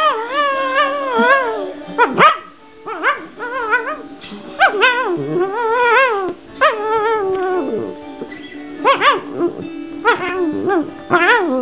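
A dog making a run of wavering, yodel-like howls and whines while playing. Its pitch swoops up and down, with short sharp yips in between.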